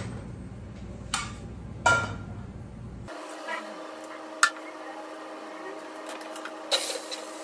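Cookware and utensils knocking on a gas stove: a loud metallic clank about two seconds in as a frying pan is set on the burner grate, then a few lighter knocks and clinks.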